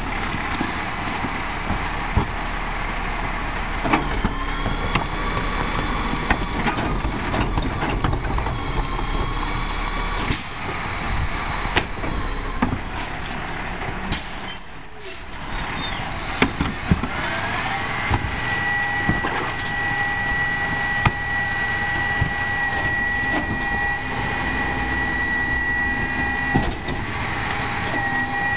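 Rear-loading garbage truck (Peterbilt 320 with Heil 5000 body) running at the curb, with scattered clanks and knocks as carts are emptied into the hopper. A little past halfway a whine rises in pitch and then holds steady as the truck runs at a higher speed.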